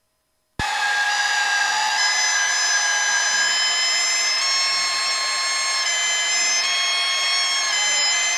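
Cessna stall warning horn sounding as the plane nears a power-off stall: a steady, high, reedy tone whose pitch shifts slightly in small steps, cutting in suddenly about half a second in.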